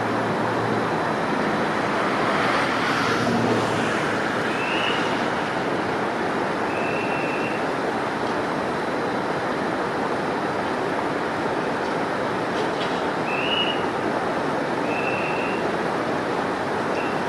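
Steady outdoor rushing noise, with two pairs of short, high whistled chirps.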